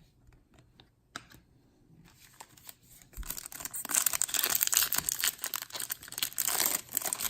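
A Topps Chrome trading-card pack's foil wrapper being torn open and crinkled. There are a few faint ticks at first, then dense crackling from about two seconds in, loudest in the second half.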